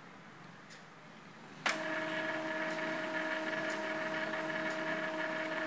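Epson L3210 inkjet printer's mechanism starts with a click under two seconds in, then runs with a steady motor hum. This is the head-cleaning cycle, with the cleaning station pumping ink through the print head.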